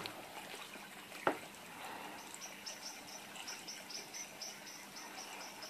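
Faint, high chirping, a steady run of short chirps about four a second, starting about two seconds in. A single sharp click about a second in.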